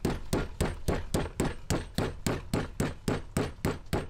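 Rapid, steady pounding of a metal meat-tenderizing mallet on a whole raw octopus on a fillet table, about five blows a second, tenderizing the meat so it is not chewy.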